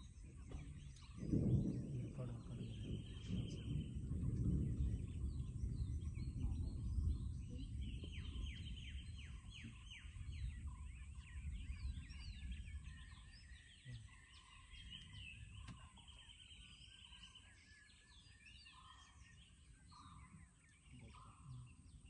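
Forest birds calling throughout, with repeated high trills and a run of lower evenly spaced notes. About a second in, a low rumble starts suddenly, then slowly fades away over about ten seconds.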